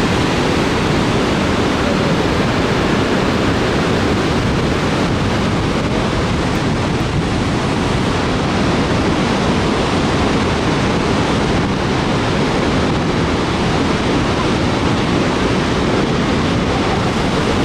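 The Lower Falls of the Yellowstone River plunging into the canyon below: a steady, unbroken rush of falling water.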